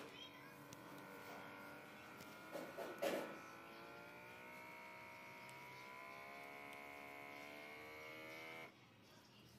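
Small air pump of an Omron blood pressure monitor buzzing steadily as it inflates the cuff pinned under a motorcycle tyre, then cutting off suddenly near the end. A couple of knocks about three seconds in.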